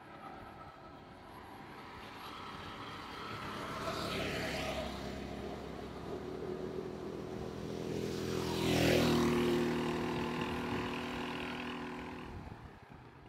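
Two motor vehicles passing close by on a road, one about four seconds in and a louder one about nine seconds in. An engine drones steadily through the second pass and fades toward the end.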